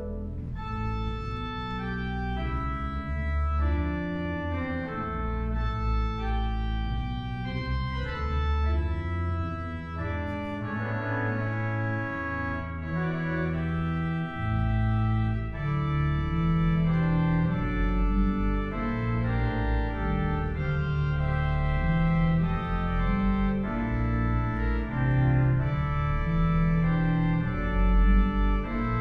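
Organ music: sustained chords that change every second or so over deep bass notes, from the organ part of a piece for choir and organ.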